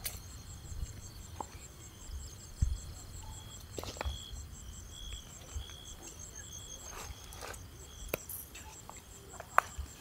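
Night insects calling steadily: a high pulsing trill with a lower chirp repeating about twice a second. A few short clicks of loose stones shifting underfoot come through, a cluster of them in the second half.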